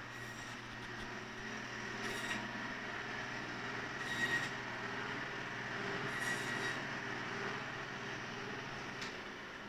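Electric band saw running with a steady whine, its blade rasping through fish in four short passes about two seconds apart. The motor cuts off with a click near the end.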